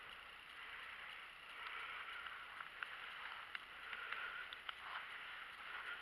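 Faint steady outdoor background hiss, with a few light clicks scattered through it from hands handling the bait.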